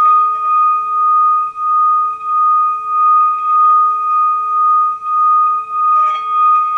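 Singing bowl tuned to an A, sung by circling a wooden striker around its rim: one steady ringing tone that swells and fades about one and a half times a second. A brief scratchy noise from the striker near the end.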